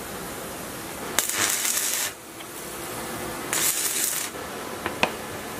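Stick welder arc crackling and hissing in two short bursts of about a second each, the first starting with a sharp click as the arc strikes. A couple of sharp ticks follow near the end.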